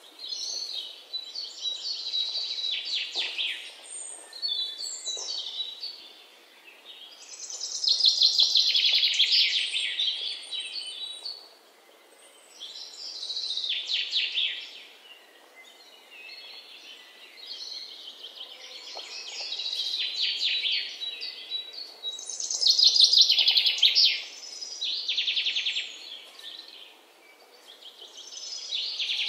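Birdsong: high trilled phrases repeated every few seconds, with quieter gaps between.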